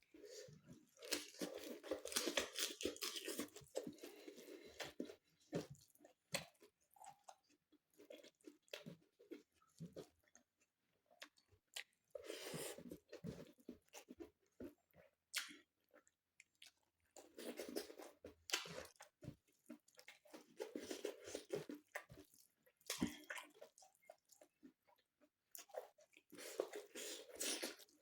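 Close-up chewing and crunching of food in the mouth, in bouts of rapid crunchy bites separated by quieter pauses.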